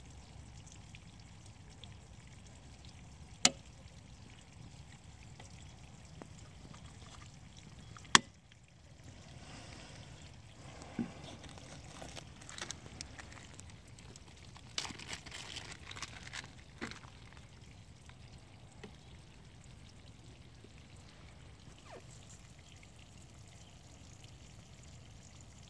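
Two sharp plastic clicks a few seconds apart, then a run of lighter clicks and handling noises, as the fiber clamps and lid of a Fujikura fusion splicer are closed and the splicer is worked, over a steady low background rumble.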